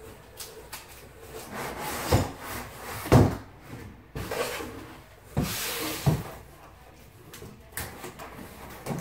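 Cardboard shipping packaging being pulled apart and handled: scraping and rustling with several knocks, the loudest a little after three seconds in.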